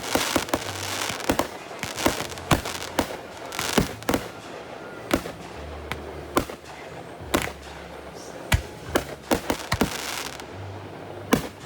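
Fireworks going off in a rapid, irregular series of sharp bangs, with bursts of crackle near the start and again near the end.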